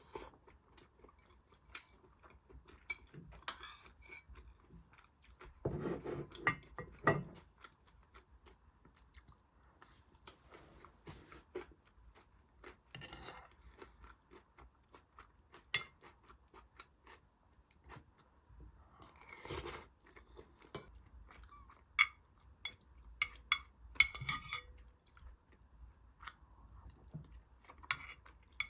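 Chewing and crunching mixed with scattered clinks and knocks of dishes and utensils, loudest in a few brief clusters of clatter.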